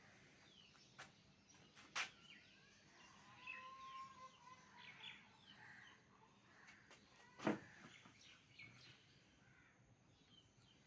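Faint birdsong: many short chirps and whistles from small birds, one call held for about a second midway. Three sharp clicks or knocks cut through, at about one and two seconds in and the loudest after about seven and a half seconds.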